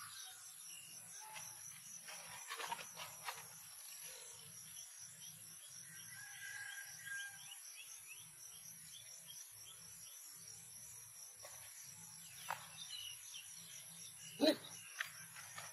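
Insects trill steadily in the grass. A young monkey scrambling over a woven plastic mat makes a few brief rustles, and there is one short, sharp, louder sound near the end.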